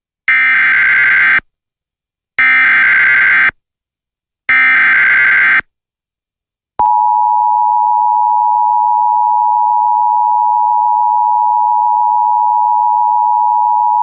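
Emergency Alert System SAME header: three one-second bursts of digital data squawk, with a short silence between each. About seven seconds in, the steady two-tone EAS attention signal starts and holds, announcing a severe thunderstorm warning.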